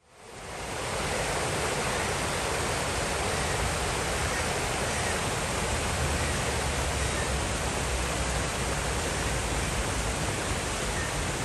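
Small river rapids rushing over rocks: a steady, even rush of water that fades in over the first second.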